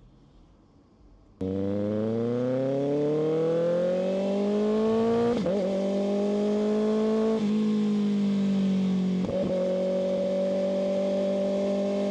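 Kawasaki ZX-6R's inline-four engine under acceleration, cutting in suddenly about a second and a half in. Its pitch climbs steadily, breaks briefly twice, then holds nearly steady.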